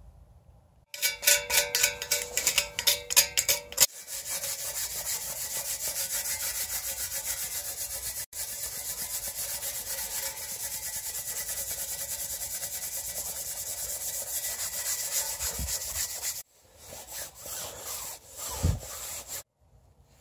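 An S.O.S. steel wool soap pad scrubbing a stainless steel exhaust tip to strip grime. It starts in quick, separate loud strokes, settles into a steady fast scrubbing that cuts off abruptly, and ends with a few irregular rubs and a low knock.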